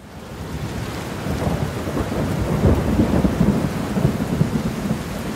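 Thunderstorm sound effect: a steady hiss of rain with low rolling thunder. It swells up over the first second or so, is loudest around the middle, and cuts off suddenly at the end.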